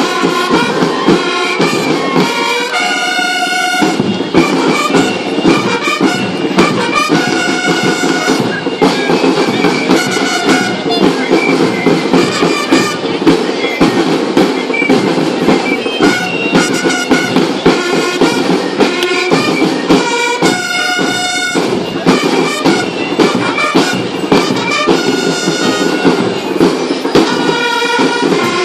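Loud music with a steady beat, with held pitched melody notes over it.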